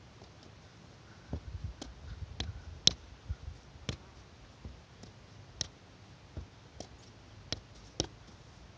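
A soccer ball being juggled with bare feet and knees: a string of sharp taps at an uneven pace of about one to two a second, starting about a second in.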